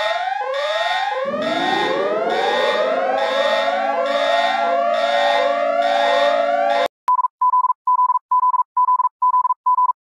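Emergency alert alarm: a stack of rising siren sweeps repeating quickly over held tones, joined about a second in by a lower tone that slides up and holds. It cuts off suddenly near seven seconds and gives way to a string of short, even high beeps, about three a second.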